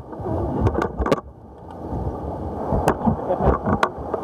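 Whitewater rushing steadily around a paddled raft, with sharp splashes and knocks as the crew's paddles dig into the water, several in a row around a second in and again about three to four seconds in.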